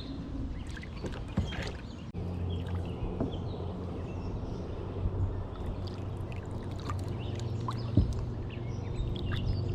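Steady low drone of a boat motor on the water, with scattered small clicks and knocks of handling aboard a kayak and one sharper knock near the end.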